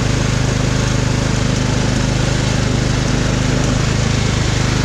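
Riding lawn mower engine running at a steady speed, with an even, fast pulse.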